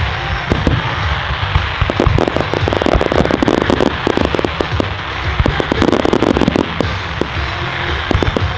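Fireworks going off in rapid strings of sharp cracks and pops that grow denser about two seconds in, with music playing underneath.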